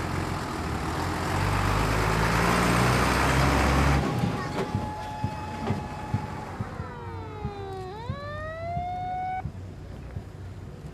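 A heavy vehicle's engine and road noise swell as it passes close, and cut off abruptly about four seconds in. Then an emergency vehicle's siren holds a steady tone, sinks in pitch and rises again, and breaks off shortly before the end.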